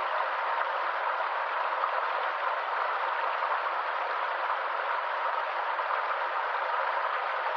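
Running water of a stream, a steady even rush with no low rumble.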